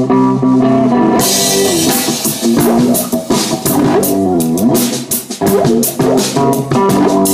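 A rock band playing live, with electric guitar and bass guitar. The drum kit and cymbals come in about a second in.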